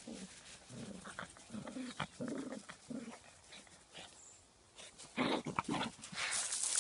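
Border terrier growling in short low grumbles while pawing and scrabbling in gravelly sand, with a louder burst of noise about five seconds in.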